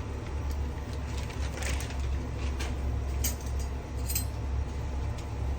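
Pot of water at a rolling boil on the stove, a steady low rumble, with scattered light clinks and rustles as dry noodles are put into it.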